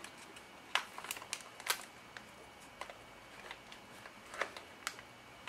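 Clear cellophane treat bag crinkling in short, scattered crackles and ticks as a ribbon is tied in a bow around its twisted neck.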